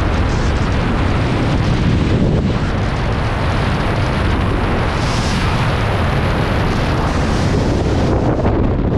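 Freefall wind rushing over the camera's microphone: a loud, steady buffeting of air from a skydiver falling after a balloon exit.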